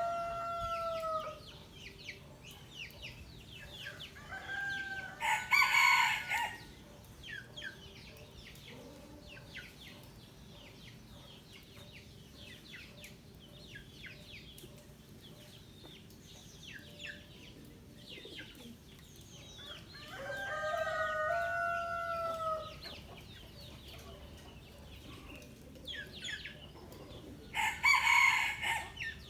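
A flock of chickens with roosters crowing: long crows at the start and about twenty seconds in, and two louder, harsher crows around six seconds in and near the end. Short clucks and chirps from the flock run in between.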